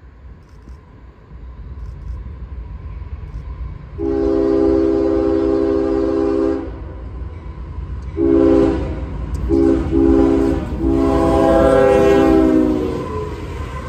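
Diesel freight locomotive's multi-note air horn sounding as the train approaches: a long blast about four seconds in, then shorter blasts ending in a long one near the end, in the long-long-short-long grade-crossing signal. Under it runs the low rumble of the locomotives and wheels, growing as the train nears.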